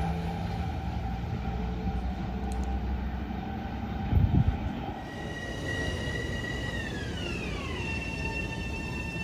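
Electric LIRR train running at the station, a low rumble with a short heavy thump about four seconds in. From about five seconds its traction motors give a whine of several high tones that glides down in pitch and then levels off as the train slows.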